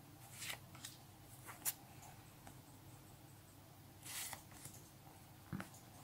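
Faint paper swishes and light ticks of a stack of Panini stickers being leafed through by hand, sticker sliding against sticker, with a sharp tick near two seconds in and a longer swish a little after four seconds.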